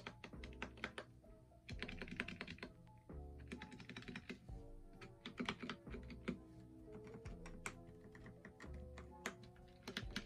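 Typing on a Dustsilver K61 mechanical keyboard: key presses and the space bar clicking in short bursts with brief pauses between, over background music.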